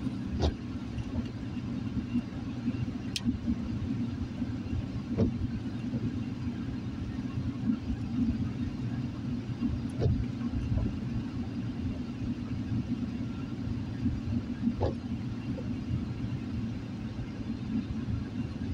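Car interior road noise while driving on wet pavement: a steady low rumble of engine and tyres, with a few faint scattered clicks.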